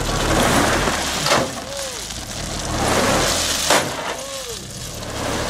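Crushed stone pouring and rattling out of a tipped dump-truck bed as the Mitsubishi Fuso truck's diesel engine runs low underneath. Two sharp knocks, each followed by a short squeak that rises and falls, come about every two and a half seconds.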